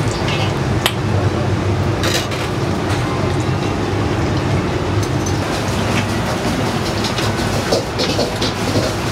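Steady low rumble of a large pot of water at a rolling boil in a ramen noodle cooker, with a few sharp metal clinks from the mesh noodle baskets.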